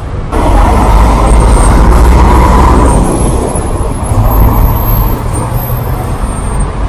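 Road traffic passing close, a coach's diesel engine rumbling by among cars, loud from just after the start.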